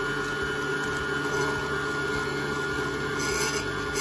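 Electric stand mixer running steadily, its beater churning creamed butter and sugar as beaten egg is added. The motor hum is even throughout.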